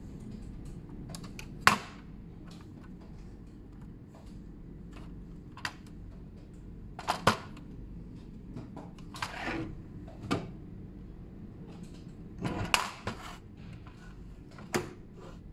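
Sharp hard-plastic clicks and knocks from a plastic fiber optic splitter box being handled and turned over, about eight of them spread irregularly, the loudest about two seconds in. A steady low hum runs underneath.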